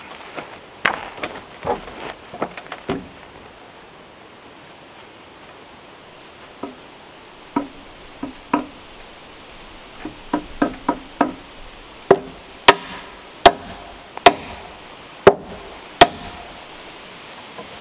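Wooden knocks and clatter as a half-round pine log is handled and set against a timber frame, then, about twelve seconds in, a run of about seven sharp, loud strikes over four seconds.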